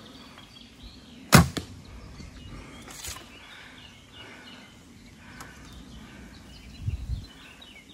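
A traditional recurve bow shooting once about a second in: the string releases with a sharp, loud snap. It is followed by a fainter click and, near the end, a couple of soft low knocks.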